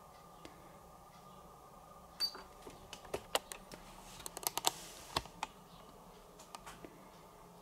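A quick, irregular run of sharp clicks and taps starting about two seconds in and lasting about three seconds, with a few fainter clicks near the end.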